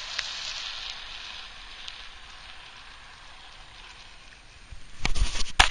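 Hiss of a drift trike's hard plastic rear wheels sliding on asphalt, slowly fading as it moves away. Loud thumps and knocks come in about five seconds in.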